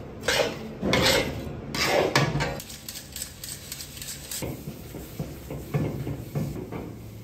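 Scraping and rubbing in a large metal kadai holding dry sugar: several loud scraping strokes in the first two and a half seconds, then quieter rubbing and rustling as the sugar is sifted through a steel sieve and the pan is wiped.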